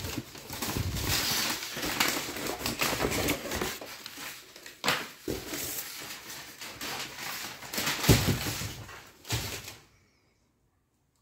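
Plastic wrapping crinkling and cardboard packaging rustling as they are handled, with a few sharper knocks, stopping abruptly about ten seconds in.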